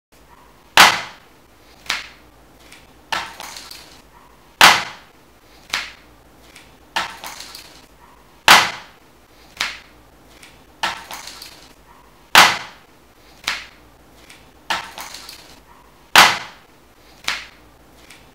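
Sharp percussive impacts in a strict repeating loop: a loud hit, then two softer hits, the last with a short rattle after it. The cycle repeats about every four seconds, five times over.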